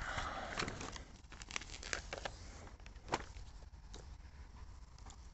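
Paper pages of a spiral-bound road atlas rustling as they are turned and handled, with a few sharp clicks and taps, the sharpest about three seconds in.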